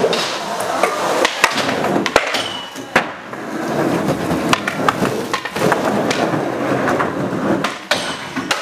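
Skateboard wheels rolling on concrete and plywood ramps, broken by a string of sharp board clacks from tricks being popped and landed.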